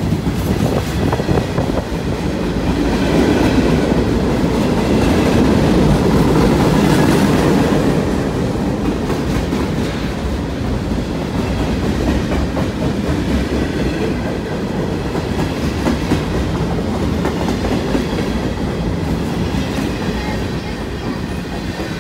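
Freight train of empty centerbeam flatcars and boxcars rolling past at close range: a steady rumble of steel wheels on the rails with a rapid clickety-clack, a little louder a few seconds in.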